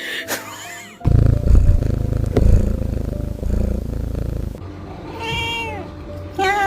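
A cat meowing twice, each call rising and then falling in pitch, about five seconds in and again near the end. Before the meows there are several seconds of a loud, low rumble.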